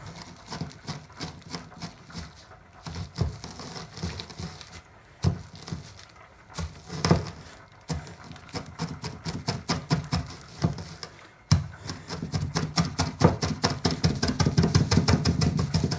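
Dry dog kibble being crushed on a plastic bag with a ribbed metal rod: a run of crunches and taps, scattered at first, then coming fast and steady for the last few seconds.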